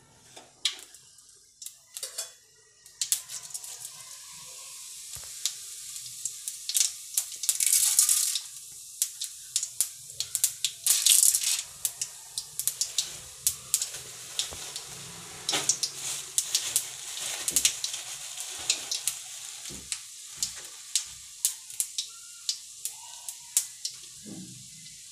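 Oil sizzling and crackling in a metal kadai on a gas stove, with many sharp pops. A few clicks come first, the steady sizzle begins about three seconds in, and it swells louder around eight and eleven seconds in.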